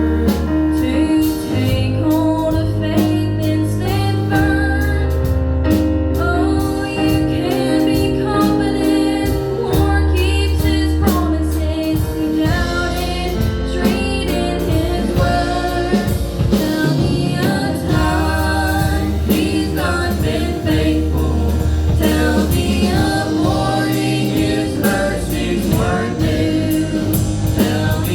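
Gospel vocal group singing with instrumental backing, over a bass line of long held notes.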